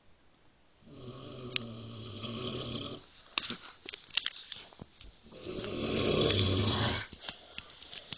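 A sleeping man snoring: two long snores of about two seconds each, the second louder, with small clicks in the gap between them.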